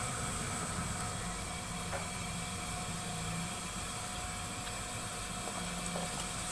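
Steady hissing background noise, with a few faint knocks near the end as potato pieces are dropped into a pot of water and pumpkin.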